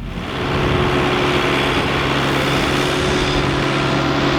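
Truck engine and road noise while driving, swelling over the first second as it gets under way and then holding steady.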